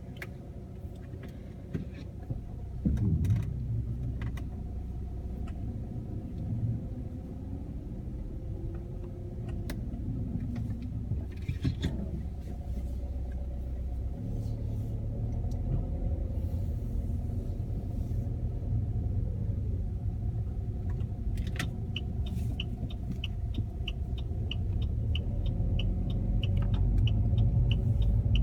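Saab 9-3 car running with a low rumble and a few sharp knocks, the knocking fault it is being recorded for. An even ticking about three times a second joins in during the last several seconds.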